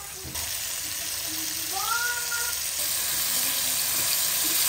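Flour-coated chicken pieces deep-frying in hot oil, sizzling with a dense steady hiss that gets louder about a third of a second in, while metal tongs stir them in the pan.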